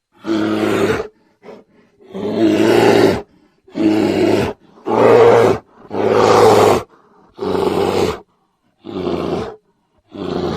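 A bear giving a series of about eight short, deep roars, each lasting up to about a second, separated by brief silent gaps.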